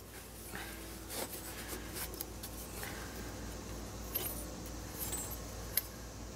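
Light metallic clicks and small rattles of turbocharger parts being handled: the machined compressor cover being settled over the impeller wheel, with a faint low hum underneath.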